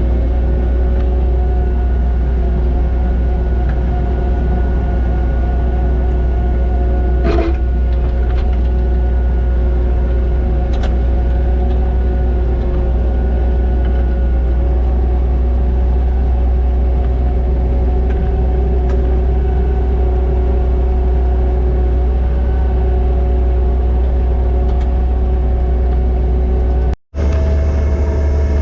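Kubota SVL90-2 compact track loader's diesel engine running steadily under load while it works a hydraulic Harley power rake through topsoil. The sound drops out briefly near the end, then resumes.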